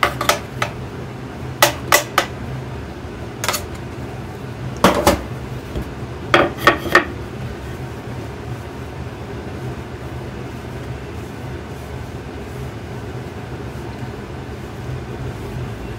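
Metal bench knife clacking against a marble slab as it squares up the edges of a slab of dough: several sharp knocks in the first seven seconds, some in quick pairs. After that only a steady low hum remains.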